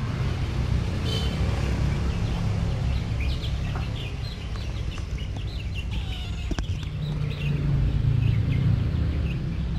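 Domestic chicks peeping around their mother hen: many short, high chirps starting about three seconds in, over a low steady rumble.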